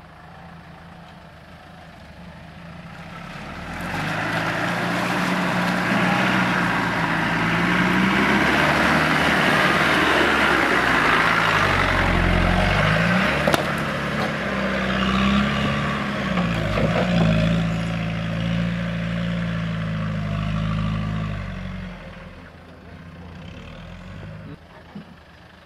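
An off-road 4x4 engine revving up and down under load as the vehicle pushes through brush close by, with branches scraping along its body and one sharp crack partway through. It comes in loud about four seconds in and fades after about twenty-two seconds as the vehicle climbs away.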